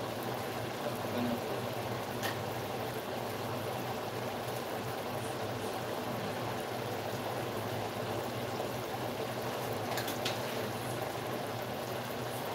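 A pot of chicken adobo boiling: the soy-and-vinegar braising liquid bubbles steadily. Two faint clicks come about two seconds in and again about ten seconds in.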